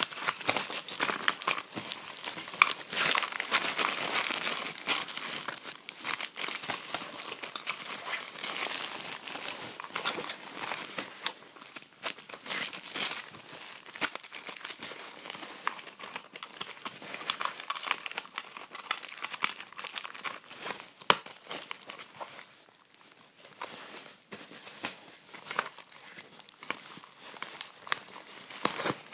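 Plastic and paper packaging crinkling and rustling as it is handled and opened, with occasional sharp clicks. It is busiest in the first third and eases off briefly a little past the middle.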